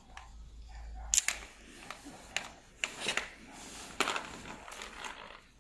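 Sharp clicks and light rattling of hands working a mini crossbow's string and its small limb-tip fittings during string installation. The loudest clicks come about a second in and again about four seconds in.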